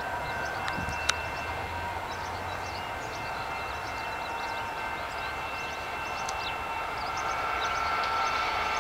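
Freight train with diesel locomotives approaching from a distance: a steady hum and rail noise that grows a little louder near the end, with small birds chirping and a single sharp click about a second in.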